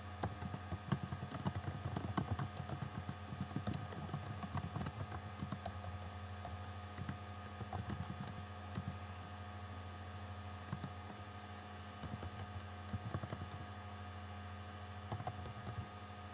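Typing on a computer keyboard: rapid key clicks, busiest in the first few seconds, then in short runs with pauses between, over a steady low hum.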